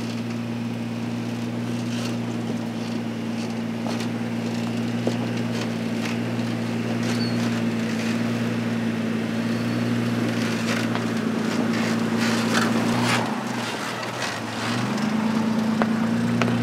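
A motor vehicle's engine running steadily under many scattered crackles and crunches, like tyres rolling over gravel and twigs. The engine note drops out briefly about thirteen seconds in, then picks up again.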